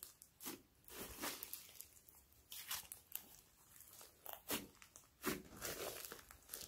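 Hands kneading and pressing a glossy slime mixed with foam beads, giving irregular short crackles and pops.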